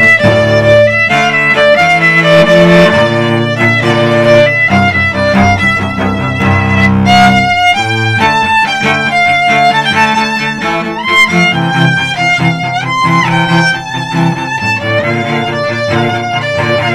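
Violin and cello duo playing an instrumental arrangement of a pop medley, the violin's sustained notes above the cello's bass line. The low part breaks off briefly about eight seconds in, then comes back.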